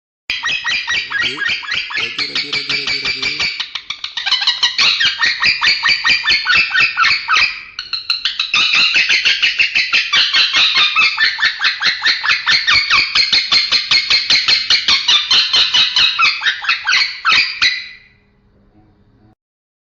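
Male lovebird chattering in a long, rapid string of harsh chirps. There are short dips about four and eight seconds in, and it stops a couple of seconds before the end.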